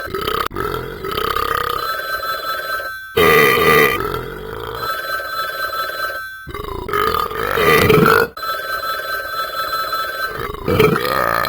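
A man burping loudly about three times, each burp long and drawn out, while a phone rings with steady high tones underneath.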